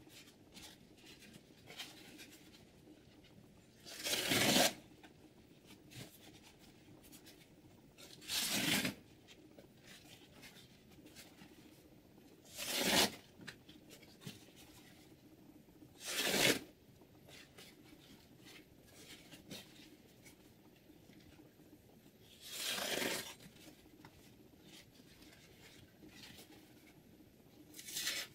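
Short noisy strokes of a knife blade, about six of them, each roughly half a second long and several seconds apart.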